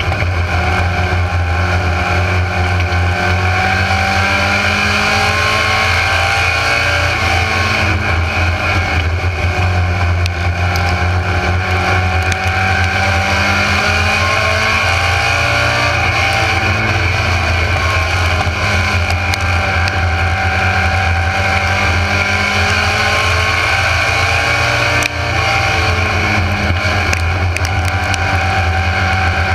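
Mini stock race car's engine heard from inside the car at racing speed, its pitch climbing under throttle and falling back as the driver lifts, in a repeating cycle every several seconds around the dirt oval.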